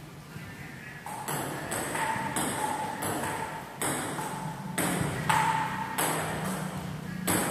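Table tennis rally: the plastic ball clicking off the paddles and the table, about two hits a second, starting about a second in, each hit with a short ping.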